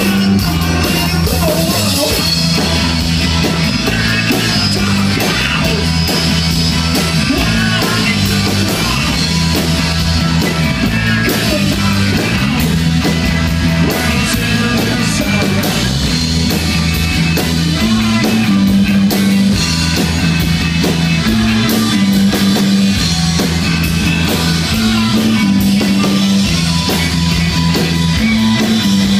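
A live rock band playing: electric guitar, electric bass and a Sonor drum kit, with the bass repeating a short riff over and over.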